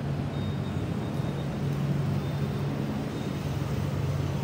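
City street ambience: a steady low hum of road traffic and engines, with a faint high whine that comes and goes.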